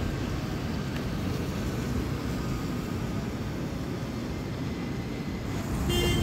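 Steady low rumble of buses and road traffic. Near the end it grows louder as a vehicle draws close, with a brief high-pitched tone.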